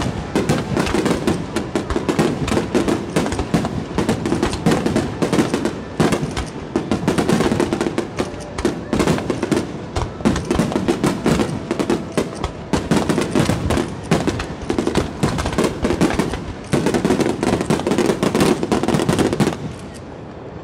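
Aerial firework shells bursting in a dense finale barrage, many bangs overlapping with almost no gap between them. The barrage stops abruptly near the end.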